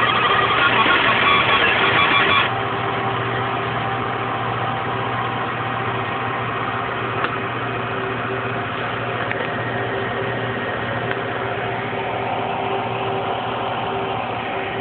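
Fiber laser marking machine running with a buzzing sound made of several steady tones, which cuts off abruptly about two and a half seconds in. A steady machine hum with a low drone and a couple of higher steady tones carries on after it.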